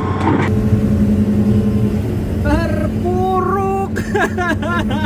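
Hitachi excavator's diesel engine running steadily under load as the machine works to keep moving on soft, sinking ground, with short pitched sounds that bend up and down over it from about halfway through.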